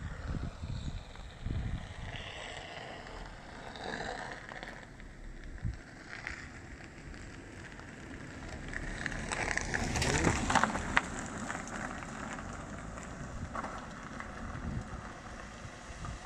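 Travel noise from a moving car: a steady low rumble of tyres and engine with wind rushing past, swelling to a louder rush about ten seconds in.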